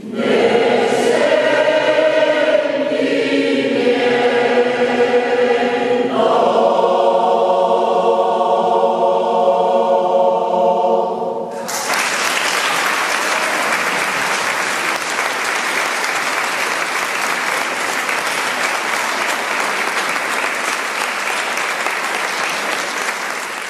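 Mixed choir singing sustained closing chords, moving to a new chord about six seconds in and cutting off together about halfway through. Audience applause breaks out at once after the final chord.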